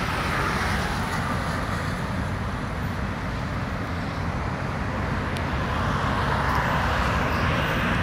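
City road traffic: cars passing steadily, a continuous wash of engine and tyre noise that grows a little louder near the end.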